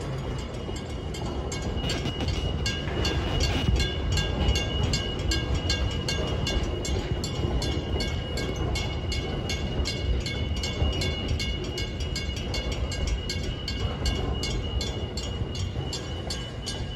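Freight train's container wagons rumbling steadily past a level crossing, with the crossing's warning bell ringing at a quick, even beat.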